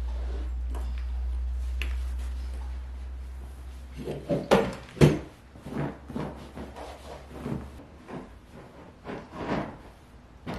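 Upholstered velvet accent chair with metal legs being handled, turned upright and set down: a run of knocks and thumps, the loudest about four and a half to five seconds in, then softer bumps. A steady low hum runs under the first seven seconds or so.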